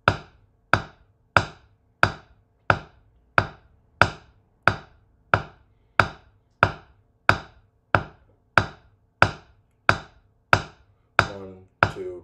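Wooden drumsticks striking a drum practice pad in alternating right-left single strokes. Each stroke is a sharp tap, at a steady beat of about one and a half a second.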